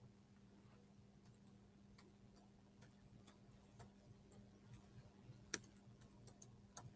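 Faint, irregular clicks of computer keyboard keys being typed, coming more often in the second half, over a faint steady hum.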